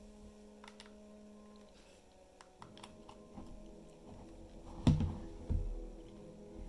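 A hand handling a 3D-printed PLA display case: a few light clicks, then a sharp knock about five seconds in and a smaller one half a second later as it takes hold of the case.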